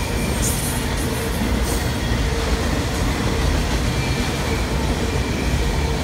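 Loaded autorack cars of a fast Norfolk Southern freight train rolling past: a steady, loud noise of steel wheels on the rails, heaviest in the low rumble, with a faint steady whine above it.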